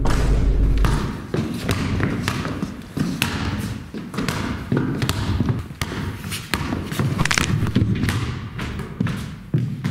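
A basketball bouncing and being dribbled on a hard indoor floor: a run of irregular thuds. It opens with a deep low boom that dies away about a second in.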